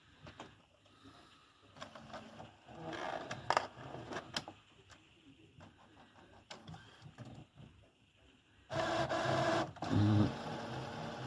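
Epson XP-6000 inkjet printer's mechanism clicking and whirring as it works on a print job after paper is loaded. A louder steady motor whir cuts in about nine seconds in and carries on.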